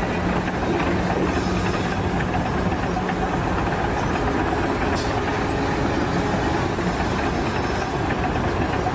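Steady mechanical running noise, like a heavy engine or machine, with a low steady tone through the first three seconds.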